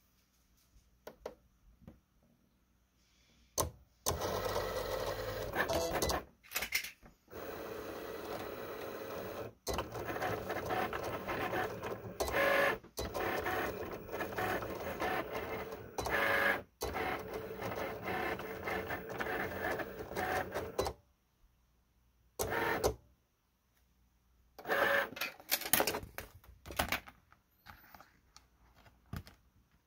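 Cricut cutting machine at work: its carriage and roller motors run in long whirring stretches with short pauses as the blade moves and the mat feeds, stopping about two-thirds of the way through. A few short bursts of sound follow near the end as the material is handled.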